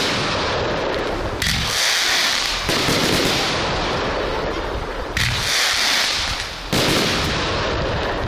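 Display fireworks going off in a steady barrage: a sharp bang every one to two and a half seconds, four in all, each trailing into a dense rush of noise that lasts until the next.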